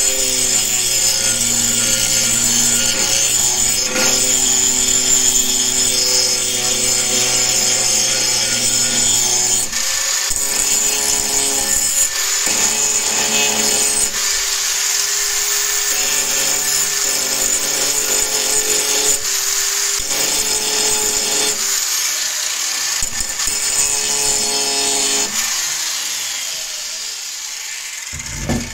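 Angle grinder with a thin abrasive disc grinding the end of a steel cleaver tang. The motor whine rises under load, with brief breaks between passes. Near the end the grinder is taken off the steel and its sound fades.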